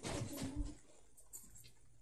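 A small dog tugging at a toy: scuffling and rustling with short, low growl-like sounds in the first second or so, then quieter.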